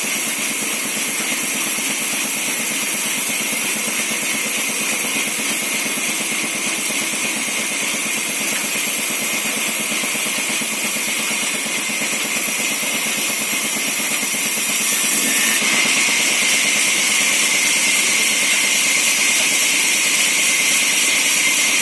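A 24-inch sawmill saw running steadily as it works timber, a constant hissing, whirring noise. About fifteen seconds in it gets louder and brighter.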